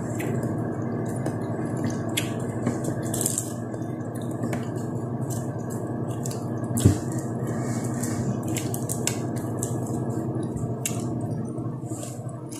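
Close-miked eating sounds: wet chewing and mouth clicks and fingers picking at fried fish, with a sharper click about seven seconds in. Under them runs a steady low hum that cuts off near the end.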